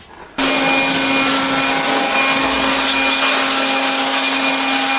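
Electric air blower switched on about half a second in and running steadily, blowing dust out of an opened inverter, a steady rush of air over a constant motor hum.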